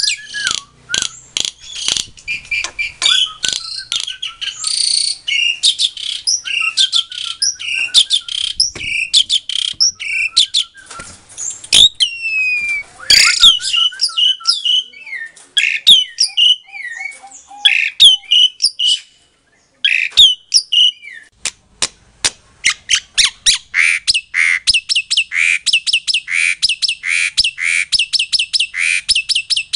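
A songbird singing loudly, a varied song of quick chirps, whistles and slurred gliding notes. It breaks off for a moment about two-thirds through, then sings a steady run of repeated notes about two a second.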